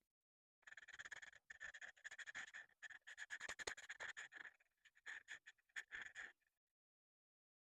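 Quiet, rapid scratchy strokes of a coloring tool rubbing back and forth on paper while an area is colored in, stopping about six seconds in.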